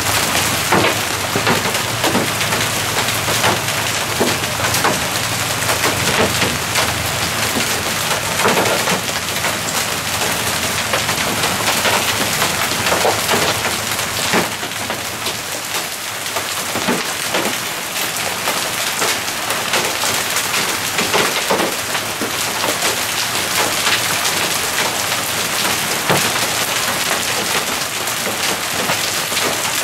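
Hail and rain pelting down in a storm: a dense, steady hiss thick with small sharp hits of hailstones striking the ground, cars and roofs.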